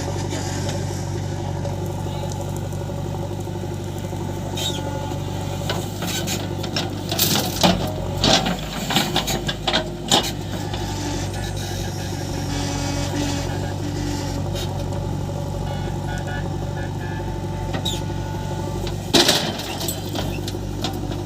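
A JCB 3DX backhoe loader's diesel engine running steadily while it loads mud, with bursts of loud clattering and knocks about seven to ten seconds in and once more near the end.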